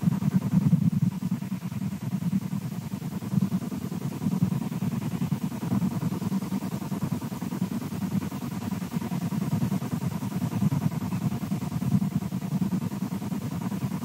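A low, waffling rumble on a bald eagle nest-cam microphone, steady and fluttering throughout, with a faint thin tone in the background.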